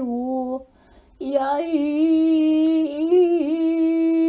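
A woman toning in light language, holding wordless sung notes. A short held note stops about half a second in. After a brief pause a long, slightly higher note begins about a second in, wavers a little midway and is held steady.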